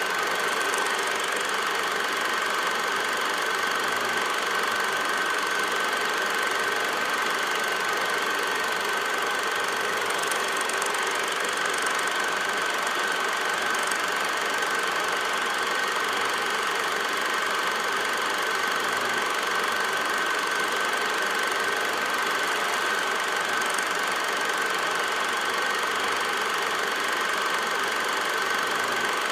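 Film projector running steadily: an even mechanical whir with a constant high whine, unchanging throughout, typical of a silent 8 mm home movie transferred with the projector's own noise as its soundtrack.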